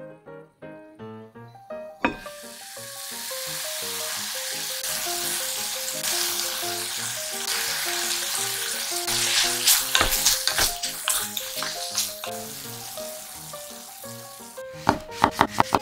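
Food sizzling in a hot frying pan, the sizzle setting in about two seconds in and running steadily, with a few utensil clicks partway through, over light background music.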